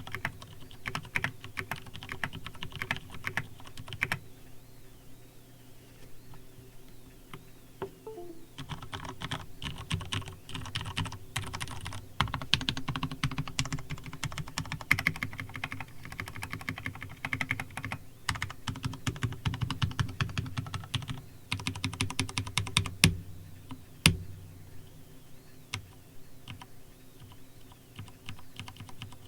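Custom mechanical keyboard with lubed Ergo Clear switches being typed on in bursts of rapid keystrokes, thinning out for a few seconds early on. Two sharper, louder key strikes come a few seconds before the end.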